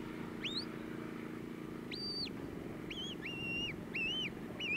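Sheepdog handler's whistle commands to a working dog: one long whistle that rises, holds and drops about two seconds in, then a quick run of shorter, lower whistles near the end. A steady low hum runs underneath.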